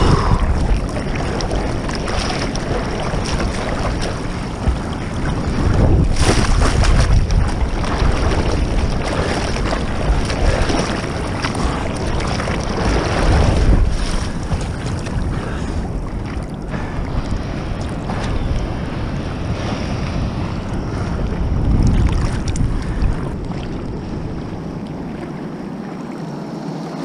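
Sea water sloshing and splashing around a camera held at the ocean surface, with surf and wind buffeting the microphone. It swells louder about six to eight seconds in and again around thirteen seconds, then eases off near the end.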